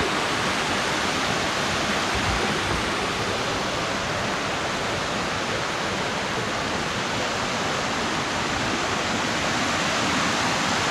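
Creek water rushing over a small waterfall: a steady, even rush.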